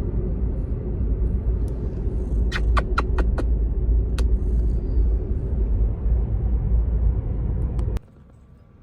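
Steady low road rumble inside a moving car's cabin, with a quick run of about five clicks a few seconds in and a single click soon after. The rumble cuts off abruptly near the end.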